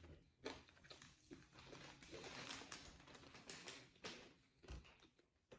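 Faint chewing and wet mouth clicks of someone eating a sub sandwich with lettuce and tomato, in short scattered bits.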